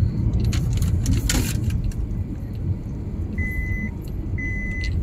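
Car cabin noise while driving on a narrow paved road: a steady low rumble of engine and tyres, with a brief rattle about a second in. Past the middle, a high electronic beep sounds twice, each about half a second long and a second apart.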